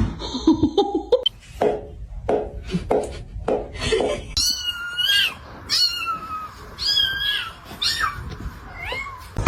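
A cat meowing repeatedly: a quick run of short calls, then about five longer, high-pitched meows that bend in pitch.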